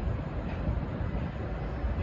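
V/Line VLocity diesel multiple unit departing: a steady low rumble of engines and wheels, with no horn.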